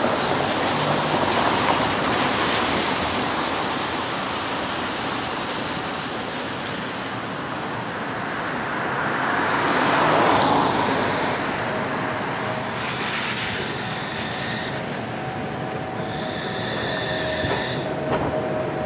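Cars passing on a wet road with a hiss of tyres on water, loudest about ten seconds in. Meanwhile a Fukui Railway F1000 'FUKURAM' low-floor articulated tram approaches and rolls past, and from about two-thirds of the way through it gives out steady high-pitched squealing tones that come and go.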